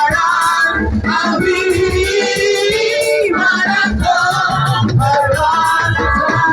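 Gospel choir singing with band accompaniment: sung notes held and moving over keyboard and a steady drum beat with regular cymbal ticks.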